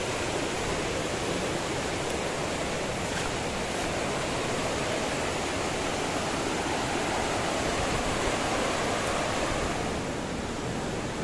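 Steady rushing of a fast-flowing river, an even wash of water noise.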